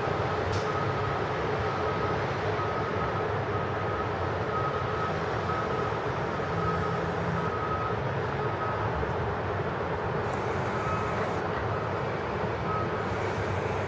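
Steady distant road-traffic noise, with a faint high whine that comes and goes in short dashes.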